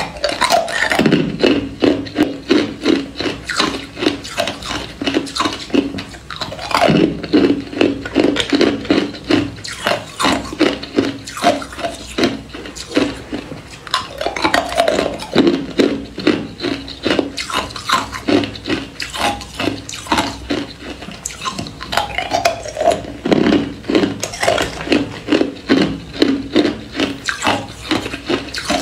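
Hard ice cubes being bitten and crunched between the teeth, a fast run of sharp crunches several a second, with a fresh, louder bite every several seconds.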